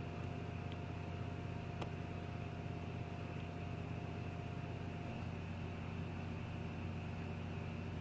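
Steady low hum with an even hiss: background room noise. There is one faint click about two seconds in.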